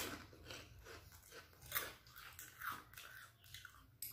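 A person chewing a mouthful of crunchy kerupuk cracker close to the microphone, with irregular crisp crunches, and a light click near the end.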